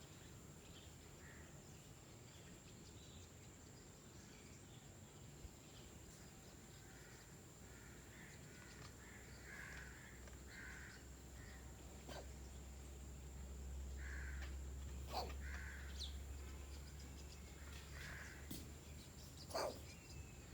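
A cat coughing: a run of short, faint hacking bursts that start several seconds in and come in small clusters.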